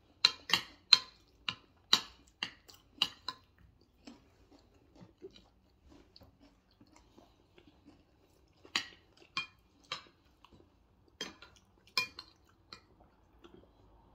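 Metal spoons clinking and scraping on china plates as food is scooped up, in a quick run of about eight clinks, then a lull, then two more short runs. Faint chewing fills the quieter stretches.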